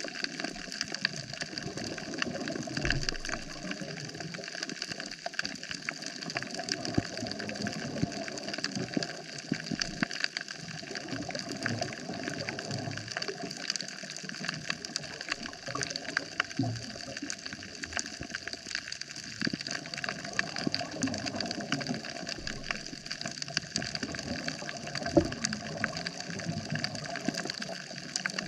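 Underwater coral reef soundscape: a dense, continuous crackle of small clicks over a steady watery hiss.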